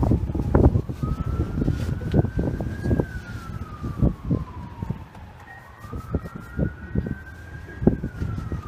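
A siren wailing some way off, its pitch rising and falling slowly through two long cycles.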